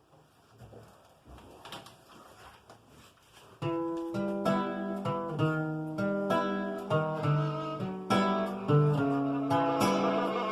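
Acoustic guitar intro: after a few seconds of faint clicks, the guitar comes in about a third of the way through with plucked, ringing notes played one after another.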